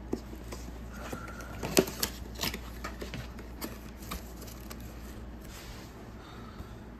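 Handling of a cardboard box of adhesive bandages and their paper wrappers: light rustling with a few sharp clicks and taps, the loudest about two seconds in.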